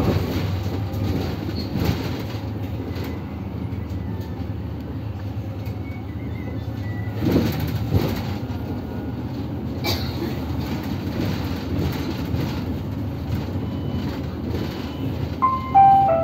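Inside a moving city bus: the steady low rumble of the bus under way, with rattles and a few sharp knocks from its fittings. Near the end, a short run of falling tones sounds.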